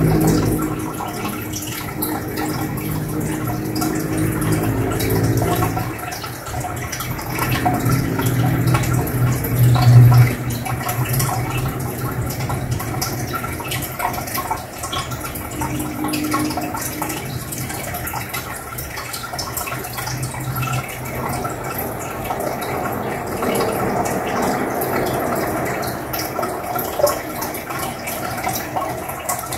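Aquarium double sponge filter bubbling and trickling, air bubbles rising up its lift tube and breaking at the water surface, with a low hum underneath that swells and fades.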